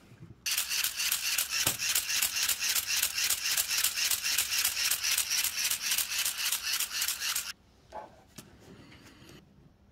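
LEGO Technic plastic gears meshing and clicking in a fast, even rattle, about five or six clicks a second, as the gear train with its liftarm crank linkage is turned by hand. The rattle starts about half a second in and stops abruptly near the end, leaving a few faint taps.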